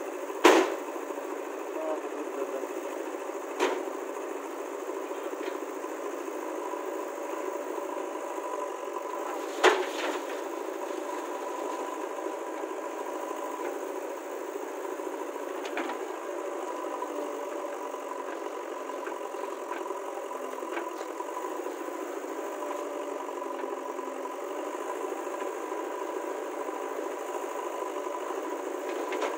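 Heavy earthmoving machinery's diesel engine running steadily, with two loud sharp knocks, one just after the start and one about ten seconds in, and a smaller knock around four seconds.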